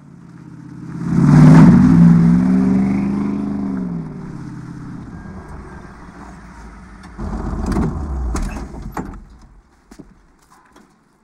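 Pickup truck engine driving by, loudest about a second and a half in, then falling in pitch and fading. Near the end a lower engine rumble with a few sharp clicks as a truck pulls up.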